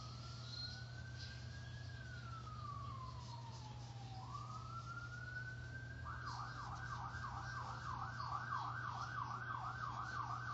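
Emergency vehicle siren: a slow wail rising and falling twice, then switching about six seconds in to a fast yelp of about three sweeps a second. A steady low hum runs underneath.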